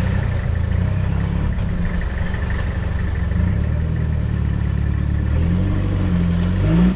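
Mitsubishi Triton 4x4 ute's engine running under load as it reverses through slippery mud, a steady drone whose revs rise near the end.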